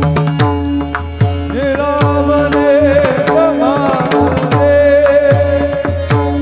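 Varkari kirtan devotional music: pakhawaj drum strokes with deep bass tones that slide downward, over a steady held drone. A long, wavering melody line comes in about a second and a half in.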